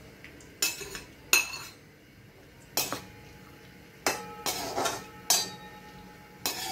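Metal slotted spoon and a plate knocking and scraping against a metal kadhai while nuts are tipped in and stirred in ghee: a string of about eight sharp clinks, some ringing briefly.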